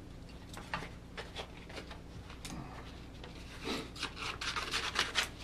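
Sheet of 220-grit sandpaper being handled and cut with scissors: scattered paper rustles, then a quick run of rasping cutting strokes near the end.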